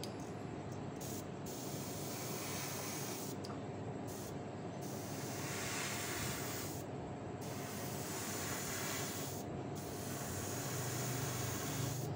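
Airbrush spraying: a steady hiss of air, with the highest part of the hiss dropping out briefly several times.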